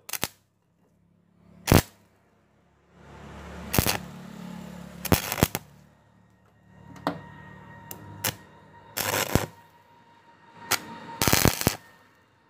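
Stick-welding arc struck again and again on steel: short, sharp crackling bursts as the electrode lays tack welds across a butt joint, about eight in all, the longest about half a second near the end, with a low hum in between.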